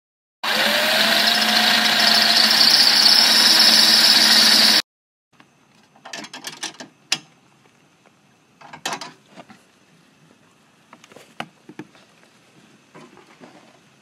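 Cordless drill running for about four seconds, its motor pitch rising slightly, drilling out the hole in the horn mount bracket to take the air compressor's bolt; it stops abruptly. Then faint clicks and knocks of parts being handled.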